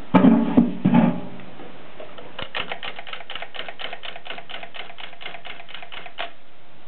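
Mignon index typewriter working: a loud mechanical clatter in the first second, then a quick, even run of clicks, about six a second, for roughly four seconds.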